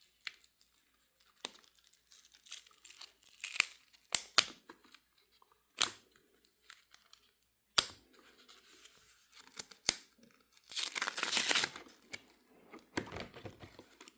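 Plastic sleeve pages of a card binder being peeled apart and turned: sharp snaps with crinkling rustles between them, and a louder crinkle lasting about a second two-thirds of the way through.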